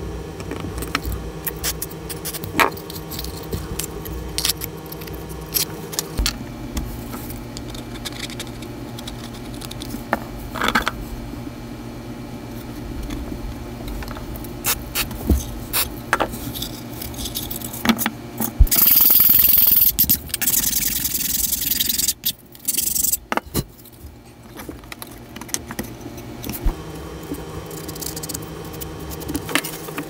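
Thin plywood parts of a small wooden case being handled and fitted together on a workbench: light taps, clicks and scrapes of wood on wood and on the bench. A steady low hum of held tones sits underneath and shifts in pitch twice, and a loud hiss lasts about two seconds just before the middle.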